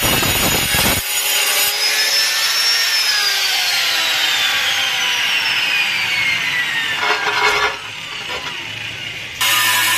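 Angle grinder cutting through a porcelain tile, then lifted clear: the motor's whine climbs as the disc runs free, then slides slowly downward as the grinder winds down. About nine seconds in, loud grinding starts again.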